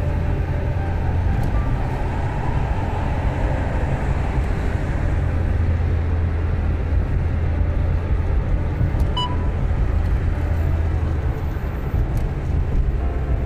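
Car driving on a highway: a steady low road rumble with tyre and engine noise and no marked changes.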